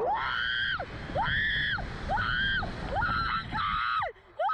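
A slingshot-ride passenger screaming in a string of about six short, high-pitched shrieks, each rising and then falling in pitch, as the capsule is flung into the air. Low wind rumble runs underneath.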